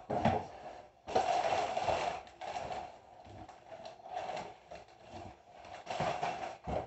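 Cardboard box flaps and plastic air-cushion packing rustling and crinkling as a shipping box is opened and unpacked by hand, in uneven bursts, the longest about a second in.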